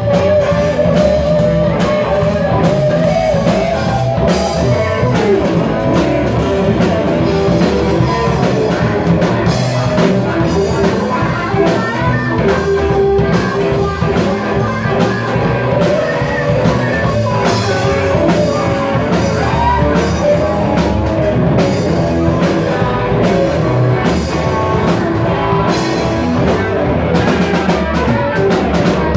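Live blues-rock band playing loudly: electric guitars over bass and a drum kit keeping a steady beat.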